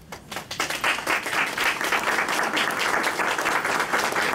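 Audience applauding: many hands clapping together, swelling up within the first second and then going on steadily.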